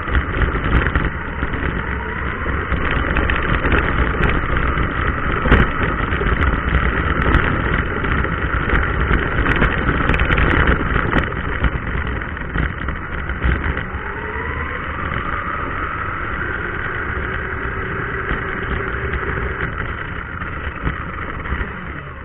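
Xinlehong 9125 electric RC car driving over paving, heard through its onboard camera: a steady rumble of tyres and drivetrain, with the motor's whine rising in pitch about two-thirds of the way through, then holding steady.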